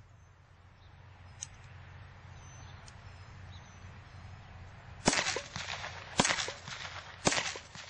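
Licensed Colt M1911 Government replica blank-firing pistol shooting 9mm PA blanks: three sharp shots about a second apart, starting about five seconds in, each with a short echo.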